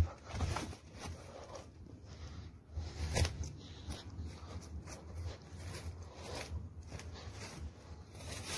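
Footsteps crunching and rustling through grass, brush and dry twigs on a rough path. The steps are irregular, with a sharp knock at the very start and another loud crackle about three seconds in, over a low rumble of wind and handling noise on the phone's microphone.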